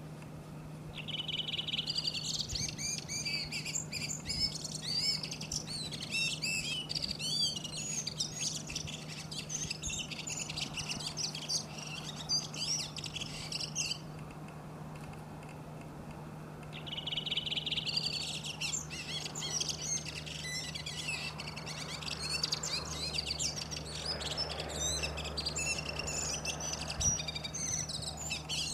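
Redwing singing in two long bouts. Each opens with a rapid run of repeated notes and goes on into a varied twittering chatter. The first bout stops about halfway and the second starts a few seconds later. A faint steady low hum runs underneath.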